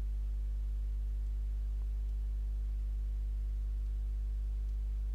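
Steady low electrical mains hum with a row of evenly spaced overtones, unchanging throughout; no other sound.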